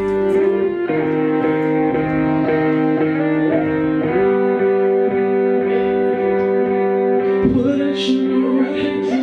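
Instrumental music with guitar: long sustained chords that change every few seconds, with no vocals.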